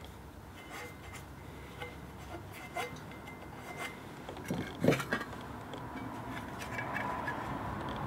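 Small metal clicks and clinks as an old FIAMM air horn's trumpet is taken apart by hand: screws coming out and metal parts being handled. A louder clatter of a few quick knocks comes about five seconds in.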